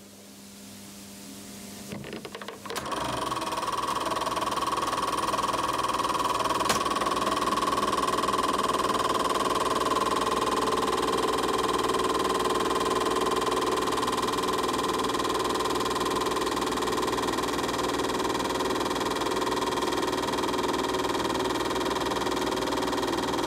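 Fuji 8mm film projector starting up and running: a low hum first, a few clicks about two seconds in as the mechanism gets going, then a steady, fast mechanical clatter of the film transport with a high whine over it.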